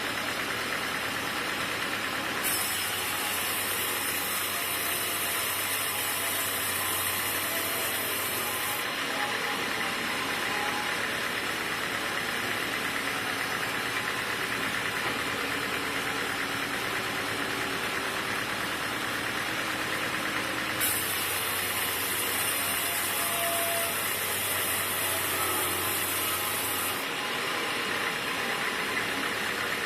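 Sawmill machinery running steadily with an engine-like drone. Twice a high hiss with a low hum under it comes in sharply, lasts about six seconds, then cuts off.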